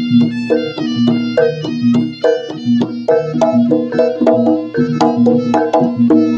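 Jaranan gamelan music: struck pitched notes and drum strokes in a quick, steady rhythm.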